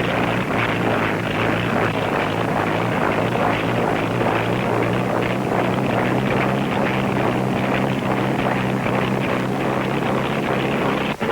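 An engine running steadily under a heavy rushing noise, its pitch edging up a little around the middle; it breaks off abruptly at the very end.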